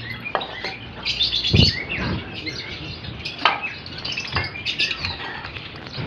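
Aviary birds chirping and calling over and over, with a few sharp knocks and one louder thump about a second and a half in as feed dishes are handled.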